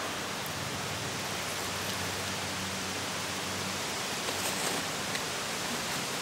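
Steady, even hiss of outdoor ambience with a faint low hum underneath, and a few light crinkles of a paper note being unfolded about four and a half seconds in.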